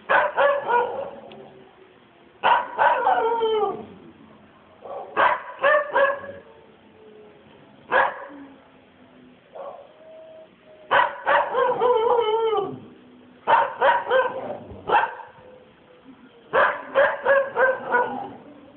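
Several kennelled dogs barking in clusters of a few barks every two or three seconds, some barks sliding down into yelps.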